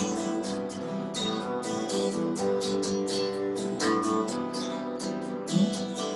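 Acoustic guitar strummed in a steady rhythm together with an electric guitar, in an instrumental passage of a two-guitar song with no singing.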